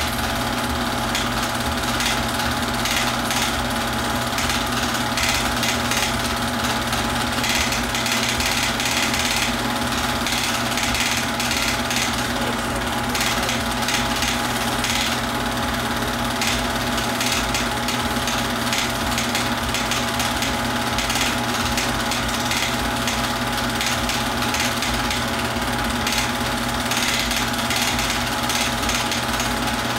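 Super 8 film projector running with a steady mechanical whir.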